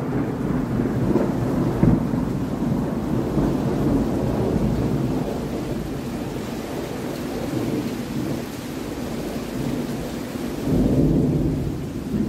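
Thunderstorm: steady rain with low thunder rumbling under it. The thunder eases off in the middle and swells again near the end.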